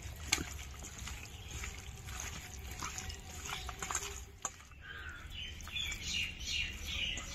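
Raw chicken pieces being mixed into a wet marinade of spices and mustard oil: soft squelching with small clicks. Birds chirp in the background during the second half.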